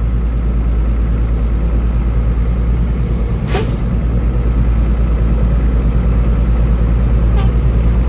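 Old dump truck's engine running steadily, heard from inside the cab, as the truck creeps forward in gear with its bed raised to spread the load. A short hiss comes about three and a half seconds in.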